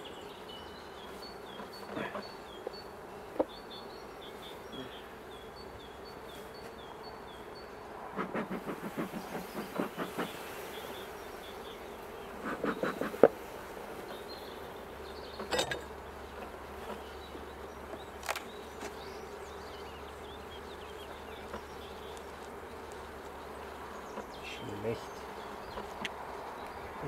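Honeybee colony humming steadily from an opened hive. Rapid clattering comes about a third of the way in and again shortly after, followed by a couple of single sharp knocks as the hive is worked.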